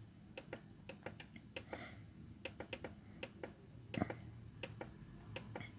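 Plastic front-panel buttons on a synthesizer keyboard being pressed to step through its edit pages: faint, irregular clicks, a few a second, with one louder click about four seconds in.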